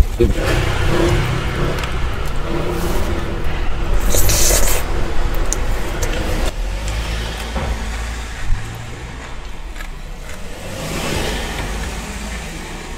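Low steady rumble of a car heard from inside the cabin, with irregular rustling and handling noises and a brief hissy burst about four seconds in.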